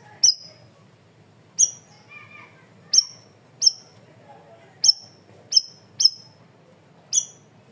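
Cucak rawis, a leafbird, giving its loud, sharp 'tembakan' calls. There are eight short piercing notes, each dropping quickly in pitch, spaced irregularly about a second apart, with softer twittering between them.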